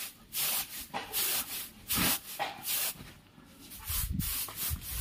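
Finger millet grain and chaff swishing and rasping over a woven bamboo winnowing tray as it is worked by hand, in short strokes about two a second. Near the end the strokes give way to a lower, rougher rumbling as the tray is handled.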